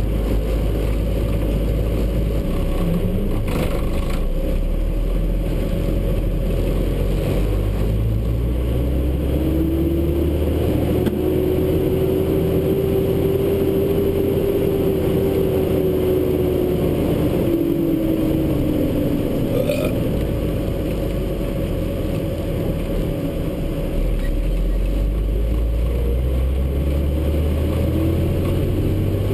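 Cab noise of a semi-truck tractor under way: the diesel engine and road noise run steadily, with a whine that rises in pitch and falls away again over about ten seconds in the middle.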